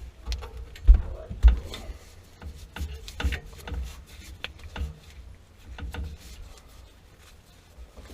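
Scattered knocks, clicks and rubbing from hands and tools working on a water heater's plumbing, with two heavier thumps about one and one and a half seconds in.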